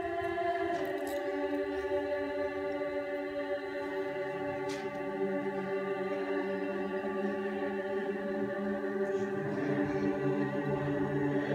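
Large mixed choir singing long held chords, with lower voices joining about halfway through and again near the end.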